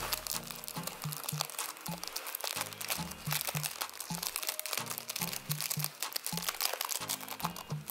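Clear plastic sleeve crinkling and crackling as it is handled, over background music with a repeating bass line.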